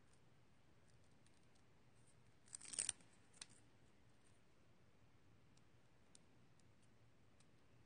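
Near silence with one brief, crisp crackle of craft materials being handled about two and a half seconds in, followed by a smaller tick.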